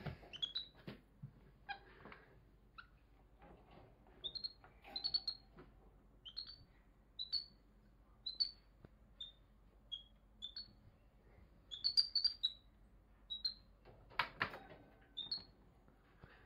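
Tufted capuchin monkey giving short high chirps, about one or two a second, with a brief clatter about fourteen seconds in that is the loudest sound.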